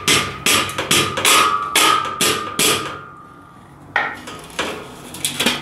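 Rubber mallet knocking a steel beam's hooks into the slotted upright of a boltless metal shelving unit. About seven blows come in quick succession, roughly two a second, with a faint metallic ring, then a short pause and a few lighter knocks near the end.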